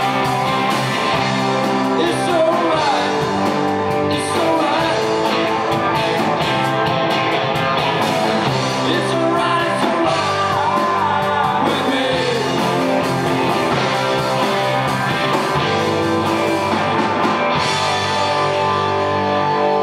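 Rock band playing live through amplifiers: electric guitars, bass and drums, with a male voice singing over them.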